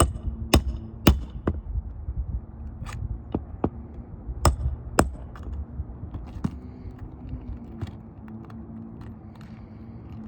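Hammer driving roofing nails through asphalt shingles: a run of sharp strikes about half a second apart in the first second and a half, a few more hits around three to five seconds in, then fewer, lighter taps. A steady low hum runs underneath.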